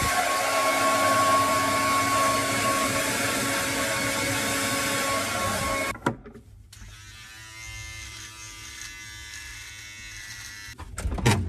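Handheld hair dryer blowing steadily with a high whine, switched off about six seconds in. Then an electric beard trimmer buzzes quietly for about four seconds, and a few sharp knocks follow near the end.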